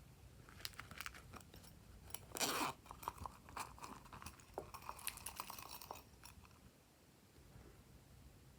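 Glossy slime being squeezed and stretched by hand, giving scattered sticky clicks and crackles, with one louder crackling squelch a couple of seconds in. The sound dies down near the end.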